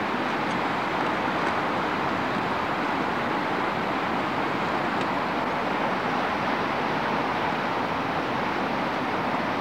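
Steady rushing of a fast-flowing river, an even unbroken noise.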